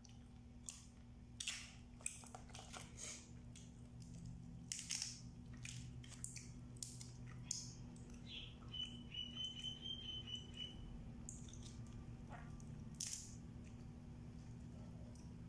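Boiled blue swimmer crab shells being cracked and picked apart by hand, with chewing: a scatter of small cracks and clicks over a steady low hum. A brief high chirping trill sounds about nine seconds in.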